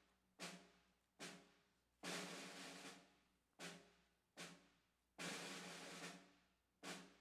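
Snare drum beating a slow marching cadence for a color guard: two single strokes about a second apart, then a roll lasting about a second, with the pattern repeating twice.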